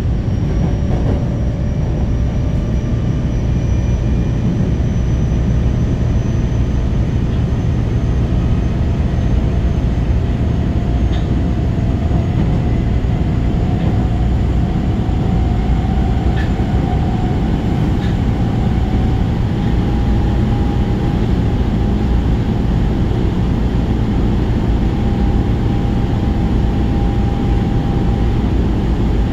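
Osaka Metro 22 series subway train running through a tunnel, heard from inside the car: a loud steady rumble of wheels on rail. Over it a whine rises slowly in pitch through the first half and then holds steady.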